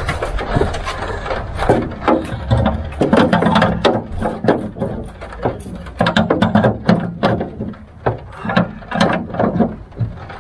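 Ratcheting spanner clicking in short, irregular runs while a nut is tightened from under the bonnet, fastening a bonnet ornament.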